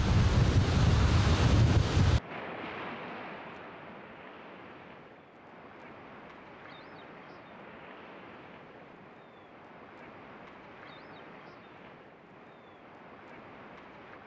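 Loud rushing noise of surf and wind buffeting the microphone, cutting off abruptly about two seconds in. After that comes a much quieter steady hiss with a few faint high chirps.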